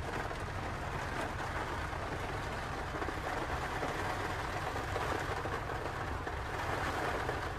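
Hurricane wind and heavy rain: a steady rushing noise with a low rumble underneath, unbroken throughout.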